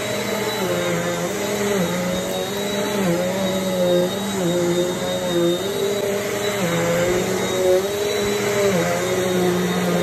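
Eureka AirSpeed bagless upright vacuum cleaner running on carpet, its motor pitch dipping and rising every second or so as it is pushed and pulled across the pile, with a faint high whine over the hum.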